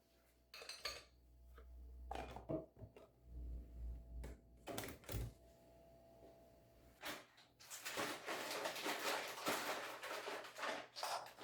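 Household objects being handled: a scatter of clinks and knocks, then about three seconds of dense rattling and scraping, with more knocks near the end.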